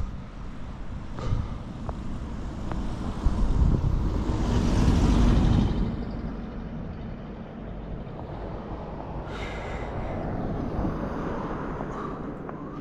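Wind buffeting the microphone in a snowstorm: a steady low rumble that swells into a stronger gust in the middle, then eases back.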